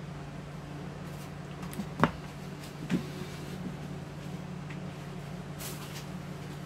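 Two sharp knocks about a second apart, the first the louder, with a few lighter clicks, over a steady low hum.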